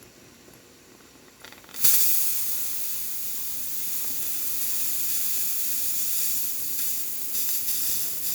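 Zacconi espresso machine's steam wand opened for a steam test. After a faint start, a loud steady hiss of steam bursts out about two seconds in and holds for about six seconds, then shuts off right at the end.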